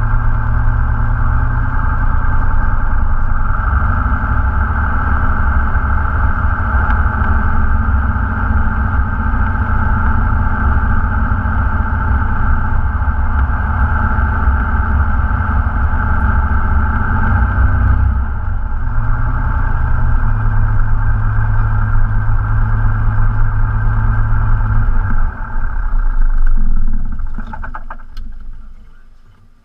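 Cessna 172 Skyhawk's piston engine idling steadily, heard from inside the cockpit, its pitch shifting about eighteen seconds in. Near the end the engine is shut down and runs down, fading away as the propeller slows to a stop.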